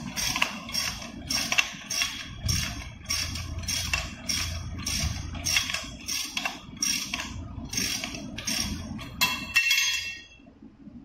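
Ratchet wrench clicking in quick strokes, about three a second, as it spins the axle nut off an electric scooter's rear hub motor; the clicking stops about ten seconds in.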